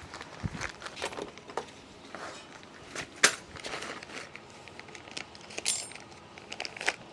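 Irregular metallic clicks and clinks of motorbike wheel spokes being handled during spoke work, with one sharper clink about three seconds in.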